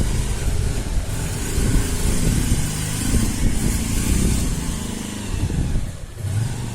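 Road traffic: a motor vehicle's engine running close by as it passes, dying away near the end.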